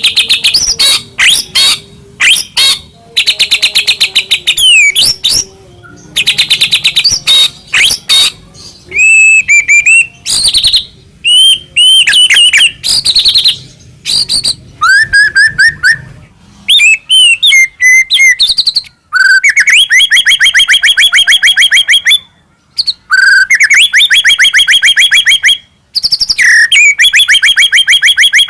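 White-rumped shama singing a loud, varied song of rapid rattling trills and whistled slurs, with short pauses between phrases. From about two-thirds of the way in, the phrases become long runs of fast repeated notes.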